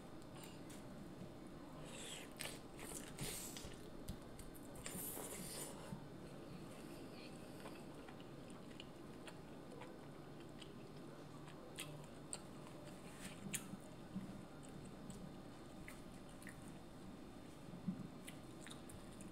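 Close-miked eating of boiled seafood: chewing and wet mouth sounds, with scattered small clicks from fingers and shells. Louder crackling bursts come about two and five seconds in.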